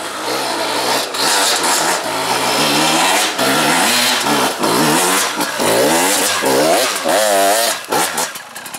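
Dirt bike engine revving up and down over and over as it is ridden hard on a rough trail, its pitch rising and falling in quick sweeps, then dropping away near the end.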